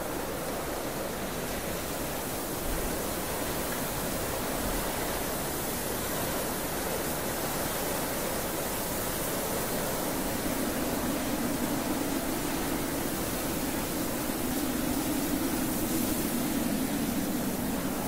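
Steady rushing wind noise, an even hiss across the whole range, swelling slightly with a deeper rush about halfway through.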